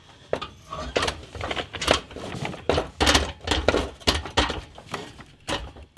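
Irregular metallic knocks, clanks and rattles as a cut exhaust pipe section is worked loose by hand under a car.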